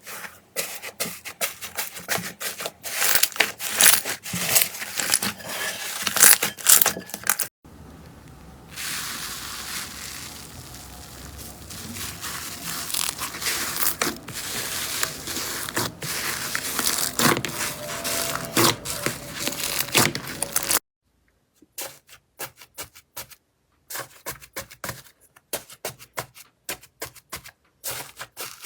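Slime being squeezed and poked, giving dense crackling and crunching clicks. The sound changes abruptly twice, and after a brief silence near the end the crackles come sparser.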